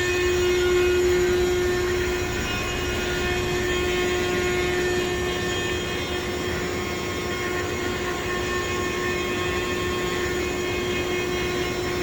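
A 5'x9' CNC machine running, a steady whine over a constant mechanical noise that holds level throughout.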